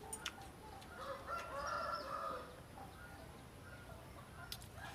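An animal call lasting over a second begins about a second in, and another starts near the end. A few faint clicks come in between.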